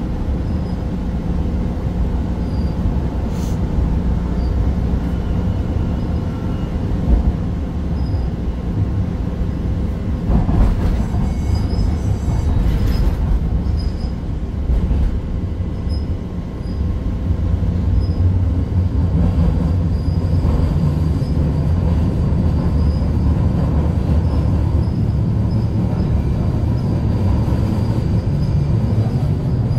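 Pittsburgh Red Line light-rail car running, heard from inside the car: a steady low rumble of wheels on rail, with faint short high wheel squeals that come and go and run longer near the end.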